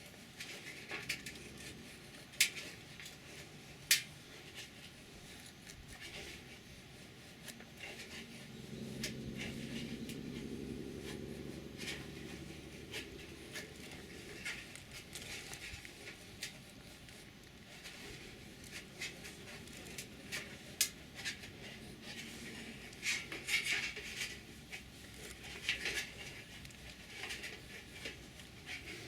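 Scattered sharp clicks and light knocks of small objects being handled, with a low steady hum for several seconds in the middle.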